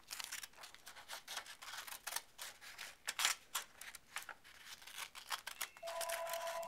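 Small green-handled scissors snipping through a sheet of printer paper in a quick, irregular run of short crisp cuts, trimming a strip away. Near the end a steady tone comes in under the snipping.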